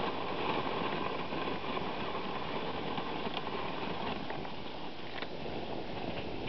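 Dog sled running over snow behind its team: a steady rushing noise of the runners and the dogs' paws in the snow, with a few faint clicks around the middle.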